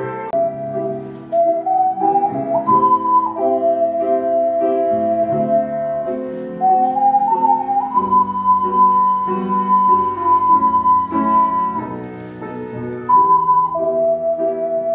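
Ocarina ensemble playing a slow piece in several parts: a held, high melody line moving in slow steps over lower parts that change together in chords.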